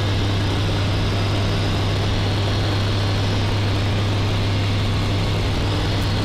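Eurofox microlight's engine and propeller running steadily at climb power, a constant low drone heard in the cockpit through the headset intercom.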